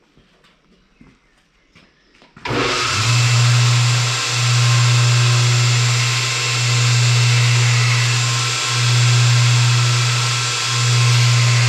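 An electric power tool switches on about two and a half seconds in and runs steadily with a strong hum, its loudness swelling and easing every couple of seconds. A few faint clicks come before it starts.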